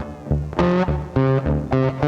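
Intro music: a guitar tune with bass, a run of plucked notes changing every quarter to half second.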